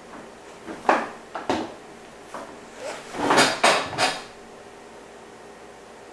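Several short knocks and clattering handling sounds: a few single ones in the first two seconds, then a louder cluster of three around three to four seconds in.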